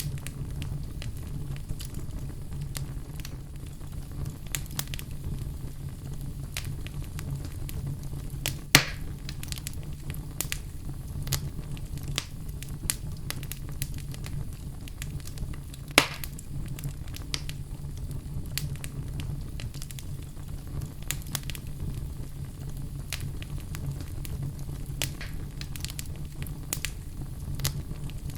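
Wood fire in a fireplace crackling over a low steady rumble, with many small crackles and two sharp loud pops, about nine and sixteen seconds in.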